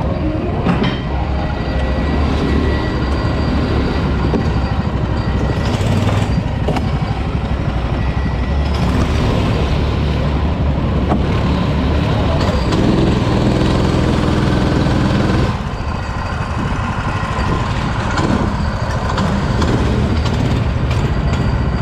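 Go-kart engine running under a dense rushing noise. A pitched engine note stands out about thirteen to fifteen seconds in, then the level dips briefly.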